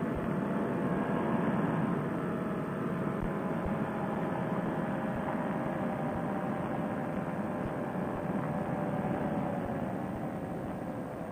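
Fresh Breeze Monster paramotor engine and propeller running steadily in flight, under a rush of wind; the engine note eases slightly near the end.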